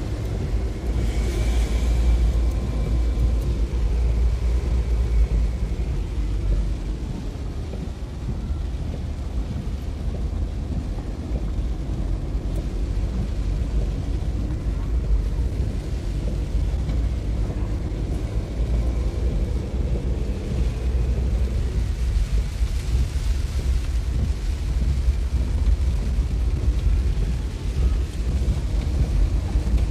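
Steady low rumble of a car in heavy rain, heard from inside the cabin through an open window.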